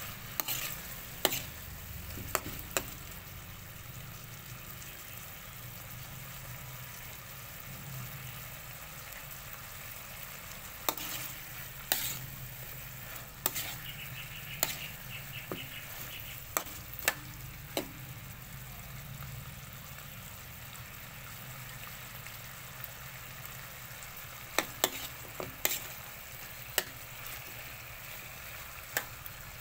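Chicken feet adobo frying and sizzling steadily in a wok in its reducing sauce. A metal spatula clinks and scrapes against the pan in scattered sharp strokes as the feet are stirred and turned.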